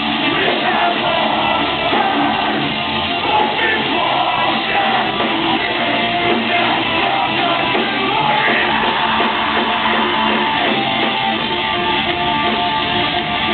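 Metalcore band playing live at full volume: distorted electric guitars, bass and drums with vocals over them, in a steady unbroken stretch of the song.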